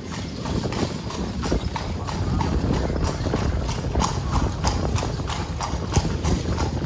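Carriage horse's hooves clip-clopping steadily on the street as the horse pulls the carriage along.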